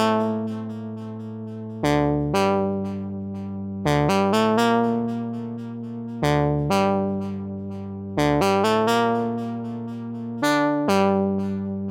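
GForce Oddity 3 software synthesizer, an ARP Odyssey emulation, playing a slow keyboard-like patch: bright, overtone-rich notes struck roughly every two seconds, often two in quick succession, each fading slowly as it is held.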